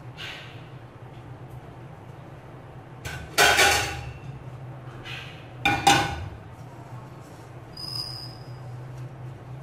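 Two brief clattering scrapes of crockery, about three and six seconds in, over a steady low hum. A short high squeak sounds near the end.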